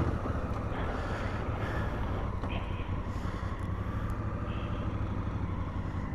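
Motorcycle engine idling steadily with an even low rumble, the bike pulled in and stopped.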